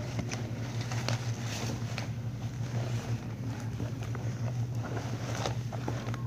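Steady low hum, with scattered faint rustles and clicks from a phone being handled close to the microphone.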